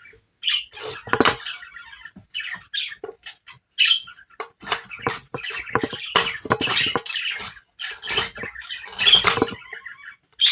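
Fresh ginger being cut and handled, making irregular sharp knocks and clicks, with short high squeaks scattered among them.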